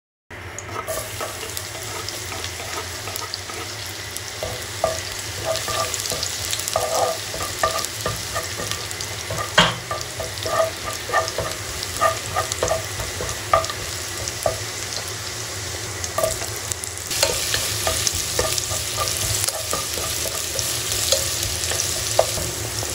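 Chopped garlic and ginger sizzling steadily in hot oil in a nonstick pot, while a wooden spatula stirs and scrapes against the pot with frequent short knocks. One sharp knock comes about ten seconds in, and the sizzle grows louder about two-thirds of the way through.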